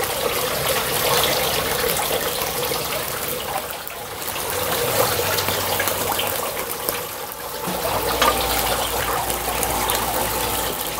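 Ribeye steaks sizzling on a wire grill grate over a very hot charcoal fire: a steady hiss with fine crackles.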